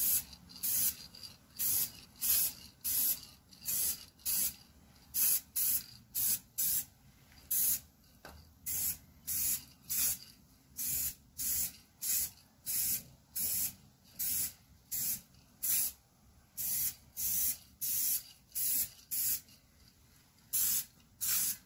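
Aerosol spray-paint can hissing in short, quick bursts, roughly two a second, as a final coat of paint goes on in light passes.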